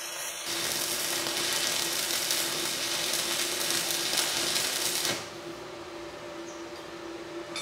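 Stick (MMA) welding arc from a 3.2 mm electrode at 120 amps on a Daesung MIG-120 SE inverter welder: steady, even arc noise that cuts off suddenly about five seconds in as the arc is broken. The arc is running stable at the machine's maximum current.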